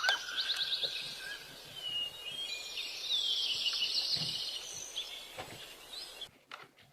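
Songbirds chirping and calling in quick short notes and trills over faint background noise, stopping abruptly about six seconds in.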